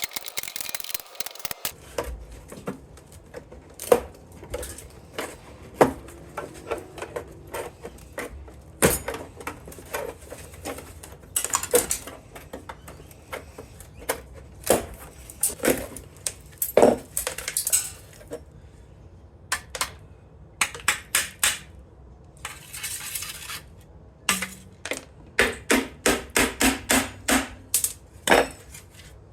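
Hand tools and metal parts of an old electric organ being taken apart: irregular metallic clinks, knocks and taps, with a quick run of about five taps a second near the end.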